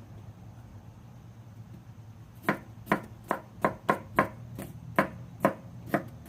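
Kitchen knife chopping a red onion on a plastic chopping mat: about ten sharp knocks at a little over two a second, starting about two and a half seconds in.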